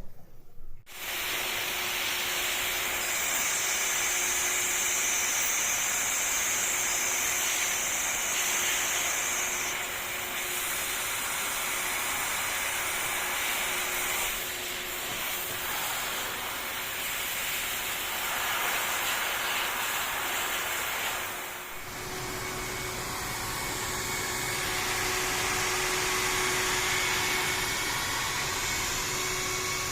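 ADS 328 HEPA industrial vacuum cleaner running, a steady rushing hiss of air being sucked in over a faint hum. It starts about a second in and dips briefly about two-thirds of the way through before carrying on.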